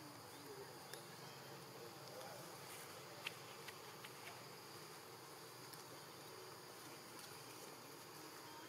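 Faint, steady drone of forest insects, with a few light clicks about a second in and around three to four seconds in.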